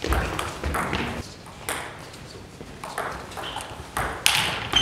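Table tennis rally: the celluloid ball clicks off bats and table in quick succession, then the hits come more sparsely with a few louder cracks near the end, echoing in a large sports hall.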